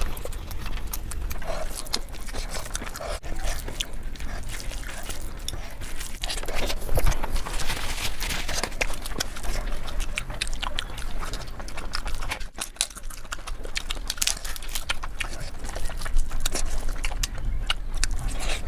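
Close-miked eating sounds: wet chewing and lip smacking, with many quick clicks of mouth and food.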